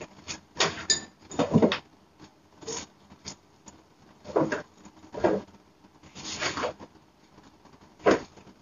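Rummaging through a cabinet: irregular rustling and light knocks as bags and other belongings are pulled out and moved about on the shelves, with the busiest handling about a second in and again near six seconds.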